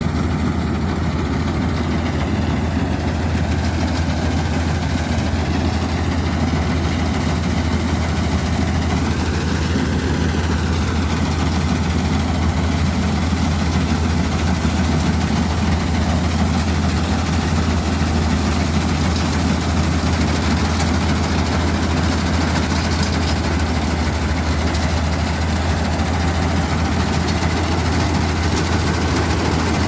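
Jasvir self-propelled combine harvester running steadily under load while cutting rice paddy: a heavy diesel engine hum with the even noise of the header and threshing machinery over it.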